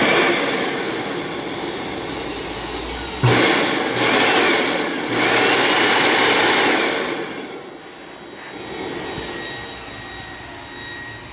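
Hoover WindTunnel 3 Pro Pet upright vacuum cleaner's motor running with a steady high whine, which the owner thinks sort of has a bearing sound to it. About three seconds in a knock and a jump in loudness, then it drops to a quieter level about seven to eight seconds in.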